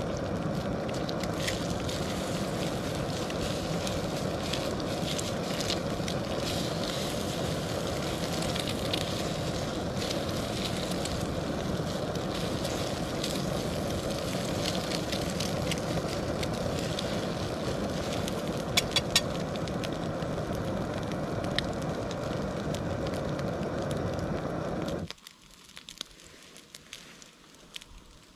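Primus Omnifuel stove burner running with a steady hiss under a frying pan, with crackling from the frying eggs and occasional clicks of a utensil on the pan. About 25 seconds in the burner is shut off and the hiss cuts out suddenly, leaving only faint sizzling and ticks.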